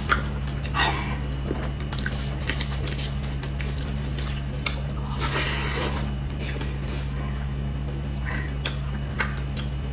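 Close-up eating sounds of soft cake: a spoon clicking and scraping, soft squishing and chewing, over a steady low hum. A sharp click comes about four and a half seconds in, followed by a brief rustle.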